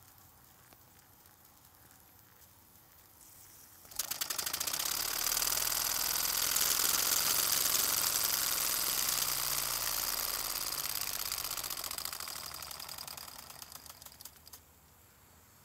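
Early-1950s West German toy vertical steam engine starting abruptly about four seconds in and running fast, a rapid hissing chuff of exhaust steam. Near the end it slows and fades, the beats spreading out, then stops.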